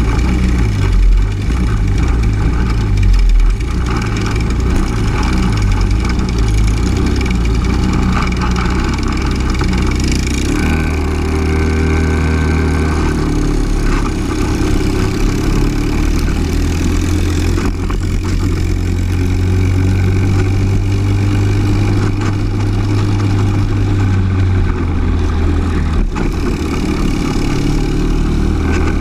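Briggs & Stratton LO206 single-cylinder four-stroke kart engine heard onboard, with other karts' engines close by. It runs uneven and choppy at low speed for about the first ten seconds, then pulls steadily at higher revs, dipping briefly a few seconds before the end.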